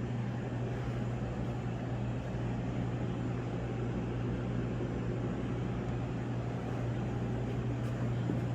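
Steady low electrical hum with a constant even hiss of running machinery, unchanging throughout.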